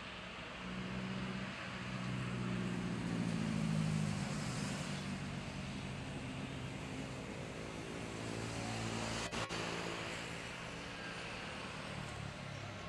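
Steady engine rumble and hiss with a low hum, swelling to a peak about four seconds in and then easing off, with a brief sharp click about nine seconds in.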